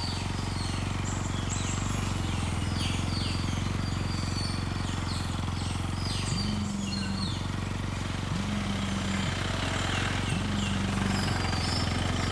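Birds chirping in quick, short falling calls over a steady low hum. Three low held tones sound about two seconds apart in the second half.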